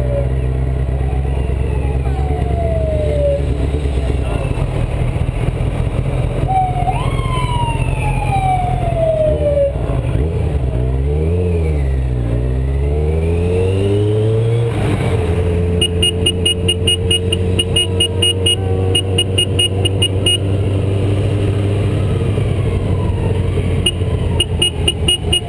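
Motorcycle engine running at slow parade pace, its revs dropping and then climbing again midway. Over it, a siren sounds in long falling sweeps in the first half, and a rapid pulsing tone repeats in the second half.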